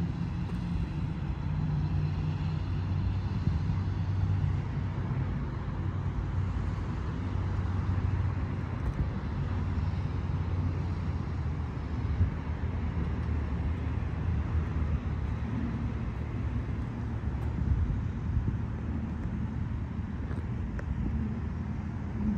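Steady low outdoor rumble with no speech, with one brief louder knock about twelve seconds in.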